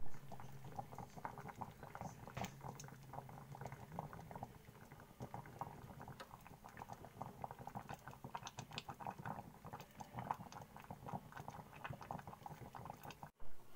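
Soy milk heating with sweet potato slices in a stainless saucepan, bubbling and popping in a steady, irregular patter of small pops. A low hum sits under it for the first few seconds, and the sound breaks off briefly near the end.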